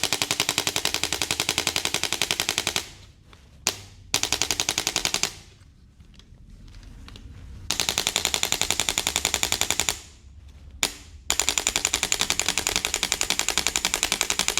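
Four runs of rapid, evenly spaced mechanical clicking, about ten clicks a second, like a machine-gun rattle, each lasting one to four seconds, with two single clicks in the gaps.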